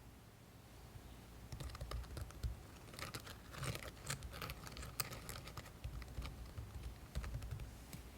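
Gritty, crunchy slime being squeezed and worked by hand, giving dense irregular crackling clicks that start about a second and a half in.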